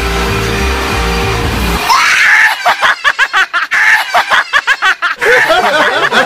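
Background music for the first two seconds, then it stops and a toddler shrieks and laughs in quick, high-pitched bursts.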